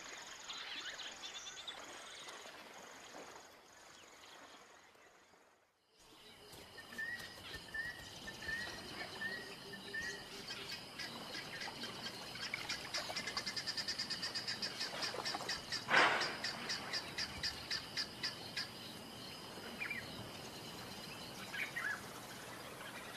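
Dusk bush ambience: insects trilling steadily with birds chirping and calling, including a short run of chirps and a fast pulsing call at about four a second. A couple of seconds of near silence come about four seconds in, and there is one sharp click about two-thirds of the way through.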